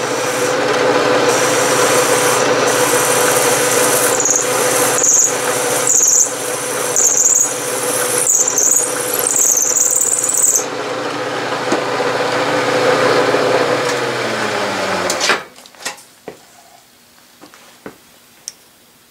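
Milling machine running with a 1/2-inch end mill cutting into a metal part to bore out a hole: a steady motor hum with a high-pitched cutting squeal that wavers and pulses about once a second, ending about ten seconds in. The machine stops abruptly about fifteen seconds in, leaving a few faint clicks.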